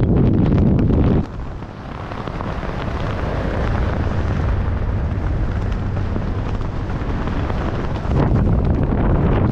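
Wind rushing over a parachutist's helmet camera during the canopy descent. Heavy low buffeting drops off suddenly about a second in to a softer, hissing rush that slowly builds, and the heavy buffeting comes back near the end.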